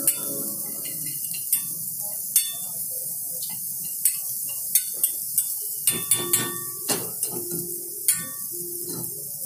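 Stainless steel frying pan worked over a gas burner while vegetables sauté: scattered clanks and clinks of metal on metal, thickest in the second half, over a steady hiss.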